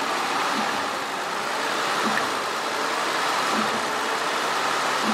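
Car engine running under the open hood in its last moments before dying after the alternator failed: a steady, noisy whir with a faint low knock about every second and a half.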